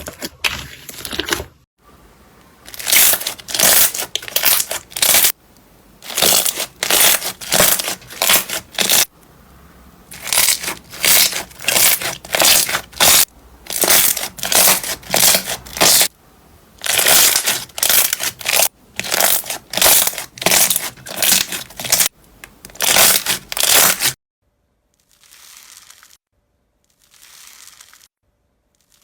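Slime being squeezed and pressed by hand: loud, sharp bursts of noise come in quick runs of a few a second, with short pauses between runs. Near the end they turn to a few softer, quieter squeezes.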